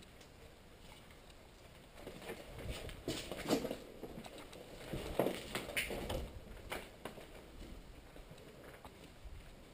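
A player's footsteps and gear shuffling, a scattering of soft, irregular knocks and scuffs, busiest from about two to seven seconds in.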